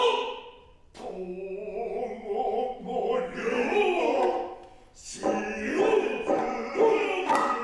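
Noh chanting: men's voices singing the utai in long, wavering held notes, with sharp single drum strikes from the hayashi ensemble about a second in, around five seconds in and near the end.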